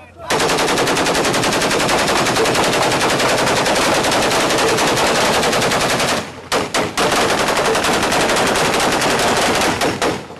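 Rapid automatic gunfire: one long unbroken run of shots for about six seconds, a short gap with a few separate shots, then another long run near the end.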